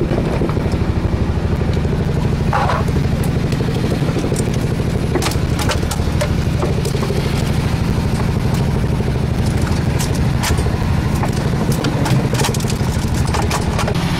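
Engine on a fishing boat running steadily with a deep, even drone, with scattered clicks and knocks from fishing gear on deck.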